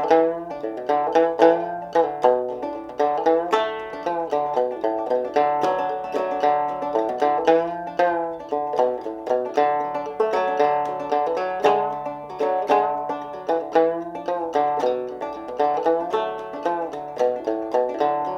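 Fretless banjo played clawhammer style, tuned very low, in an instrumental break with quick plucked notes over a recurring low bass note.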